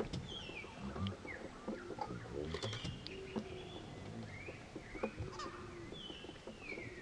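Repeated high whistled animal calls, each sliding down in pitch and lasting about half a second, with a few short rising calls between them and a faint low murmur underneath.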